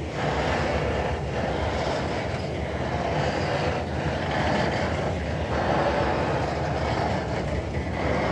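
Coal hopper wagons of a freight train rolling past, steel wheels running on the rails in a steady rumble. A faint regular pulse comes about every second and a half.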